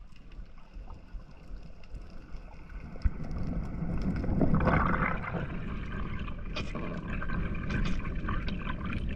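Underwater sound heard through an action camera's housing: a muffled rush of moving water as the diver swims over the reef, with scattered sharp clicks. The rush swells louder about halfway through.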